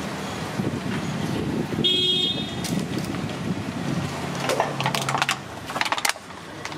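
Street din with a short vehicle horn toot about two seconds in, then sharp clicks and crinkles of plastic water bottles being knocked together and handled.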